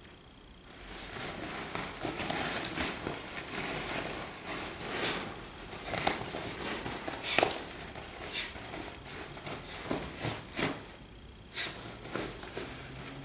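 A Shar Pei digging and pawing at a shiny vinyl beanbag chair: irregular crinkling and rustling of the vinyl cover as she scratches and shoves it into shape, starting about a second in, with the loudest scrape a little past the middle.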